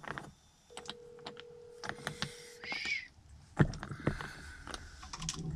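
Wooden Jenga blocks clicking and knocking against each other as they are stacked into a tower by hand, with one louder thump about three and a half seconds in.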